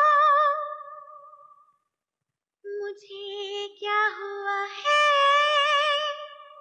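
A high voice singing long, held notes with a wavering vibrato, unaccompanied. It comes in two phrases with a short silence between them, about two seconds in.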